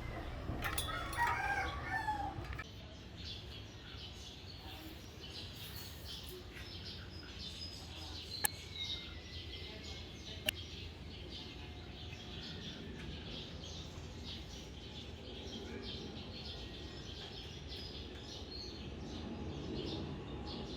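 A rooster crowing once, a call of about two seconds near the start, over a low steady hum, with two sharp clicks near the middle.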